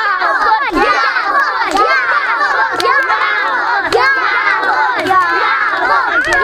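A group of young children shouting and cheering together, many high voices overlapping.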